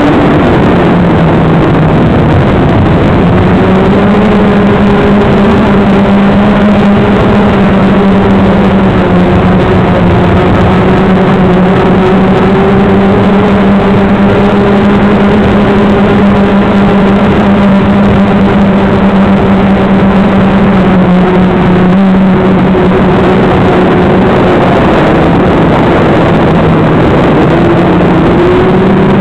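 Electric motor and propeller of a small FPV model aircraft, heard close up from its onboard camera microphone. A steady, loud hum whose pitch dips and rises a few times as the throttle changes: dips about a second in and again in the last few seconds, then rises near the end.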